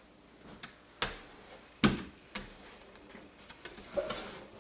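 A handful of sharp clicks and taps from hand tools being picked up and handled, such as a plastic hard card and spray bottle, with one louder knock a bit under two seconds in.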